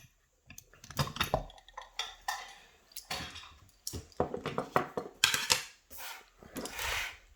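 Small metal clicks, taps and scrapes at an irregular pace: a picked mortise lock cylinder and its brass parts being handled and knocked together.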